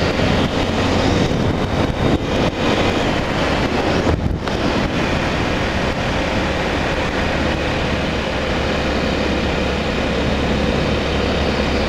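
Honda Tornado 250's single-cylinder four-stroke engine running at a steady speed under way, under a continuous rush of wind and road noise.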